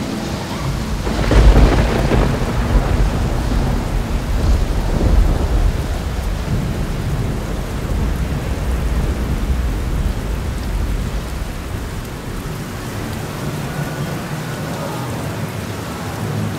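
Thunderstorm sounds: a loud rumble of thunder about a second in, over a steady rush of rain that goes on throughout.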